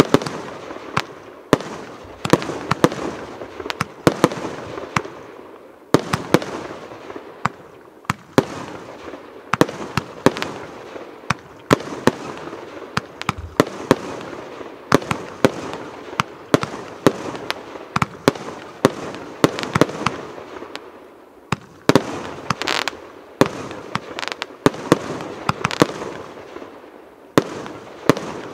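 Rubro Event Box Zero Tolerance, a 152-shot fireworks cake, firing: a rapid, continuous series of launch bangs and star bursts, a few a second, over a steady hiss.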